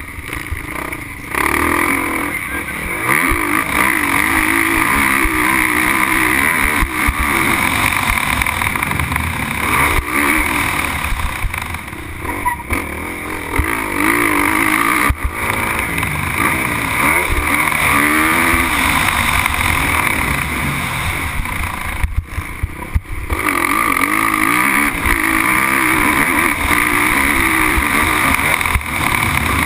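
Motocross bike engine heard from on board, revving up and down over and over as the rider works the throttle and gears around the track. The engine note cuts back sharply for about a second about three quarters of the way through.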